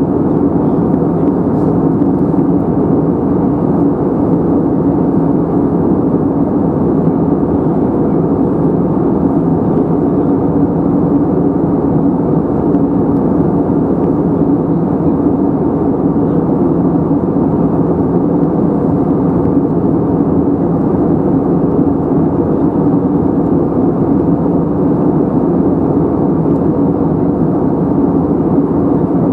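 Steady in-flight cabin drone of an Airbus A320neo, heard from a window seat over the wing: its Pratt & Whitney PW1127G geared turbofans and the rushing airflow, a loud unbroken low roar with a steady hum in it.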